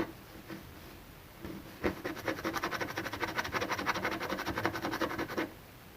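Sandpaper rubbed quickly back and forth over body filler on a car panel, a fast even run of scraping strokes that starts about two seconds in and stops shortly before the end.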